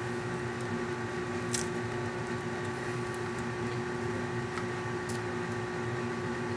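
A steady background hum made of several constant pitches, with a faint click about a second and a half in.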